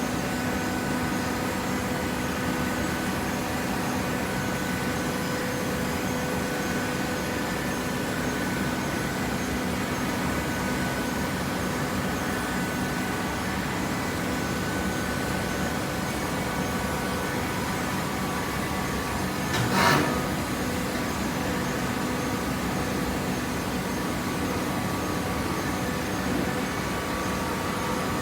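Hydraulic cardboard baler running: a steady machine hum with several constant tones over a noise bed, and one brief louder sound about twenty seconds in.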